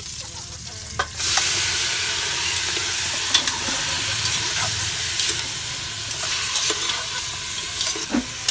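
Boiled chicken pieces start sizzling loudly in a hot pot about a second in, a steady frying hiss. A metal ladle stirring in the pot adds scattered scrapes and clicks.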